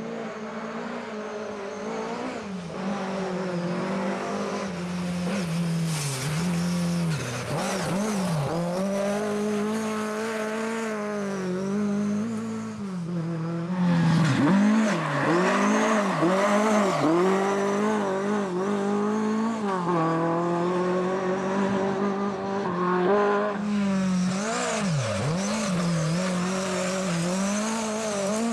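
Lada saloon rally car engines at hard throttle, revs rising and dropping sharply again and again through gear changes and corners as the cars drive through.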